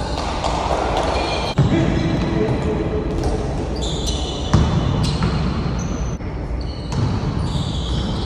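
Basketball being played on a court: the ball bouncing, with sharp thuds about a second and a half in and again about four and a half seconds in, and short high squeaks.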